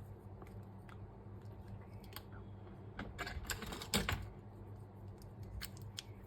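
Small sharp clicks and light scrapes from handling the opened plastic casing of a Bluetooth headphone, with a quick cluster of louder clicks about three to four seconds in, over a faint steady hum.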